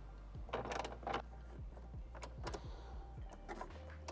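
Socket wrench with a 10 mm socket clicking in short, irregular runs as a taillight mounting bolt is tightened down to snug.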